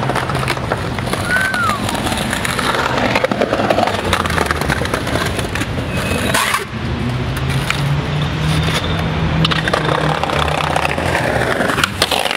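Skateboard wheels rolling over stone paving with a steady rumble, broken by several sharp clacks of the board popping and landing.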